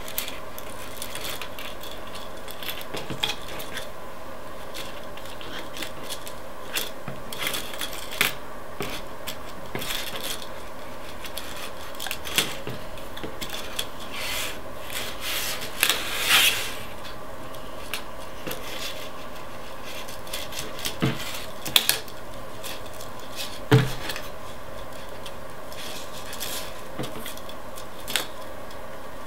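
Plastic drinking straws and metal paper clips being handled as paper clips are pushed into the straw ends: scattered light clicks, taps and rustles, with a louder rustle about halfway through, over a steady background hum.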